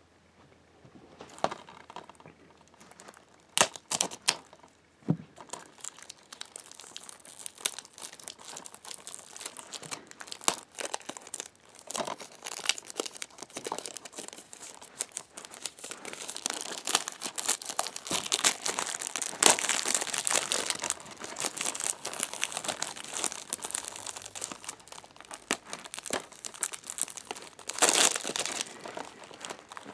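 Plastic shrink wrap on a DVD case being cut open with scissors and then torn and peeled off, crinkling continuously. A few sharp snips in the first few seconds; the crinkling grows louder about halfway through.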